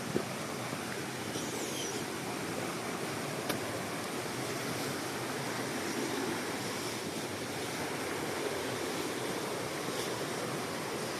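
Waterfall: a steady rush of falling water, with a couple of faint, brief clicks.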